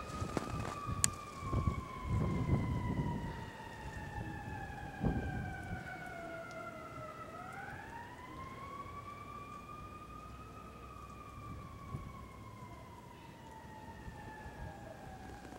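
Siren wailing: its pitch falls slowly for about seven seconds, rises again, then falls slowly once more. A few soft thumps come in the first few seconds.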